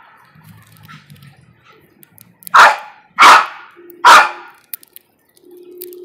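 A dog barking three times in quick succession, about two-thirds of a second apart.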